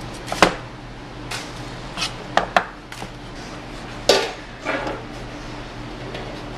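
Chef's knife cutting a green bell pepper on a plastic cutting board: a scattering of sharp knocks of the blade against the board, the loudest about four seconds in, over a steady low hum.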